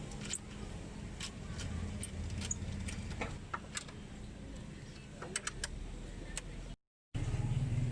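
A steady low mechanical hum with scattered small clicks and taps over it; all sound drops out for a moment near the end.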